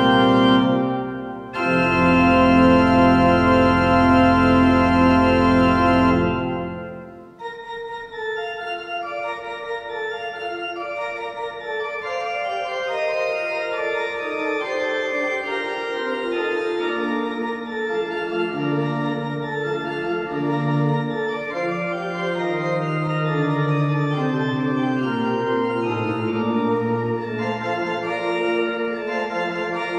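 Pipe organ playing: a loud, full held chord with deep bass that breaks off about seven seconds in, followed by a softer passage of moving notes, with a low bass line coming in midway.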